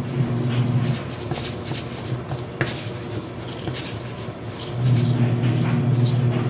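A steady low hum that cuts out about a second in and returns about a second before the end, with scattered light clicks and rustling of handled kitchen items while it is off.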